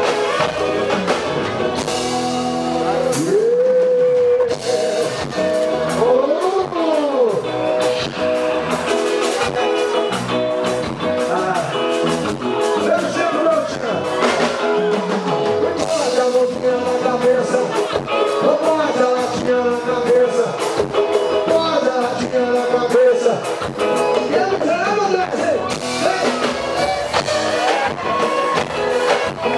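Band music with a lead singer, the vocal sliding and wavering over a steady, full accompaniment.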